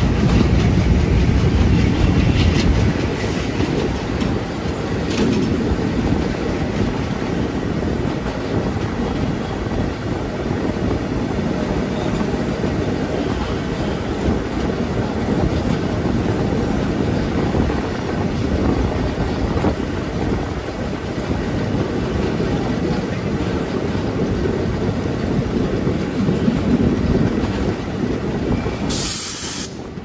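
ALCO WDG3A diesel locomotive, a 16-cylinder ALCO 251 engine, running steadily under power while hauling its train, with wheel-on-rail noise underneath. A short burst of hiss comes near the end.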